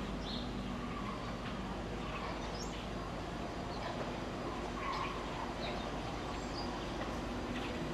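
Short bird chirps every second or so over a steady low hum.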